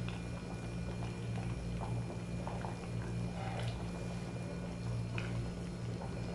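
Thick chicken caldereta sauce simmering in a pot, with scattered soft pops of bubbles over a steady low hum.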